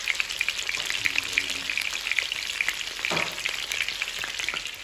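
Chicken thighs sizzling in a hot frying pan as they brown, a steady crackle thick with quick little spits and pops.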